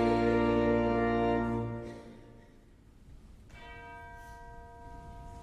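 Organ holding a final chord that fades out about two seconds in; after a short pause a bell is struck once and rings on.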